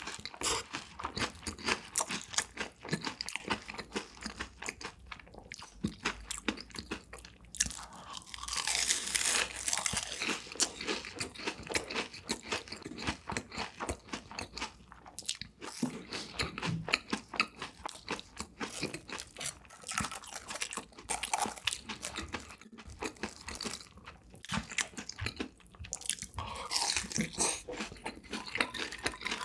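Close-miked eating: crunching bites and steady chewing of food, full of small crisp clicks, with louder crunchy stretches a third of the way in and near the end.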